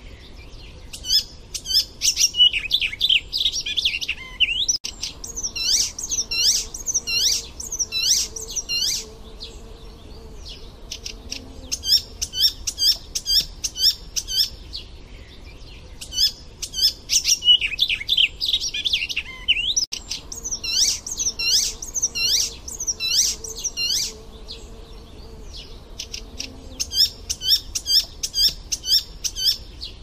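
Icterine warbler singing a fast, varied song of high chirps, trills and dense, harsh notes, in bursts several seconds long with quieter gaps between. The same stretch of song repeats about halfway through, as a looped recording.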